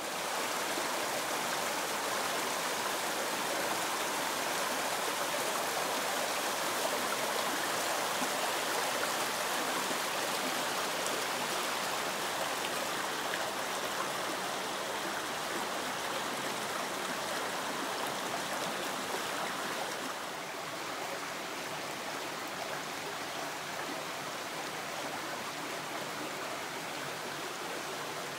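Small rocky forest creek running and splashing over stones in little cascades, a steady rushing that turns a little softer about twenty seconds in.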